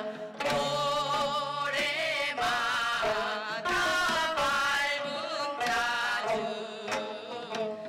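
A gayageum ensemble plucking the twelve-string zither while the players sing a Korean folk song together (gayageum byeongchang), the voices wavering in pitch, with short breaks between phrases.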